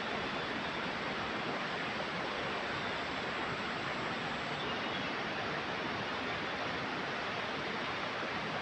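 Steady rushing of flowing river water, an even hiss with no breaks or distinct events.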